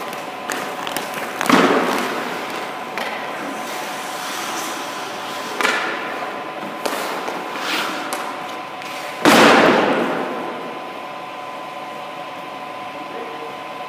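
An ice hockey goalie's skates scraping the ice and his pads dropping onto it during crease movement. There are three strong scraping swooshes, each dying away quickly: about a second and a half in, near the middle, and the loudest about two-thirds of the way through. Lighter skate scrapes and clicks fall between them.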